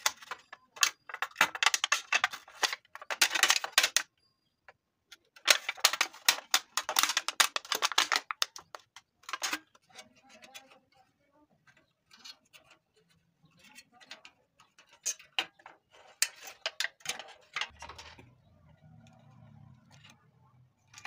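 Thin aluminium beer can crackling and crinkling as its wall is sliced with a blade and peeled back: dense runs of sharp clicks for the first eight seconds, then sparser clicks and snips as scissors cut at the can. A low hum comes in near the end.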